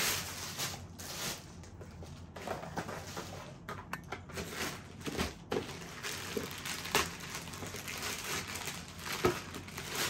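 Thin plastic bags crinkling and rustling as they are handled: a plastic shopping bag being bunched up, then a plastic courier bag being opened. Irregular rustles, with a couple of sharper snaps in the second half.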